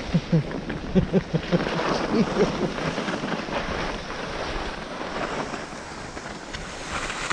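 Skis sliding and scraping over packed snow, with wind buffeting the microphone. A few short pitched chirps come in the first two seconds.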